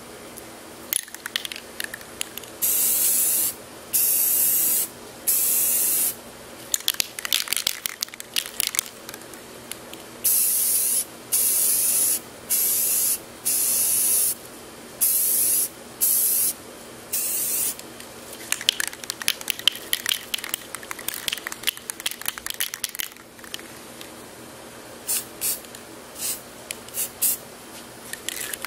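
Aerosol can of flat tan spray paint spraying in a string of hissing bursts about a second long each, laying a base coat on a helmet. Between the bursts come stretches of rapid crackling.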